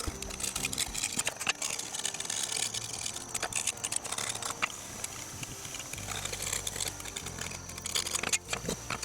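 Caked grass and dirt being scraped off a lawn mower blade with a hand scraper: irregular scratchy, clicking strokes. Background music comes in about six seconds in.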